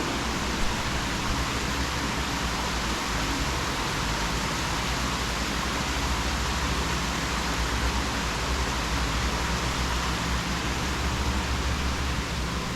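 Steady rain, an even hiss with no breaks or separate drops standing out.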